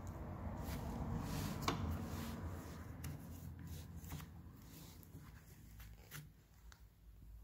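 Light handling noises: rustling and a few scattered clicks, over a faint low hum.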